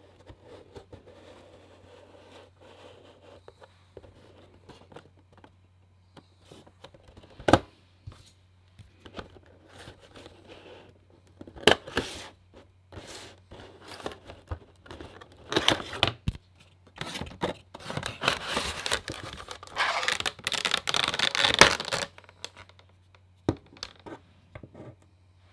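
Cardboard box and plastic packaging handled during the unboxing of a vinyl Funko Pop figure: scattered clicks and scrapes, a sharp snap about seven and a half seconds in, then a long stretch of rustling and crinkling from about fifteen to twenty-two seconds as the figure is pulled out. A few light knocks near the end.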